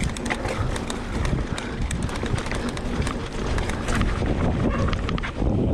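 Wind buffeting the microphone over the rumble of an electric mountain bike's tyres rolling fast on a dirt trail, with frequent clicks and rattles from the bike over roots and bumps.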